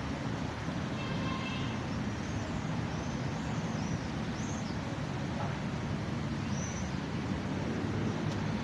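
Steady city traffic noise, a continuous low rumble of passing vehicles. A brief high squeal comes about a second in, and a few short high chirps come in the middle and near the end.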